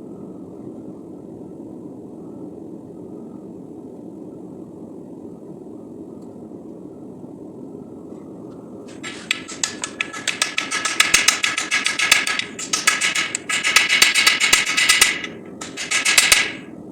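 A steady low rushing noise, then about nine seconds in, rapid ringing hammer blows on steel at the anvil. They come in three quick runs with short breaks and stop shortly before the end.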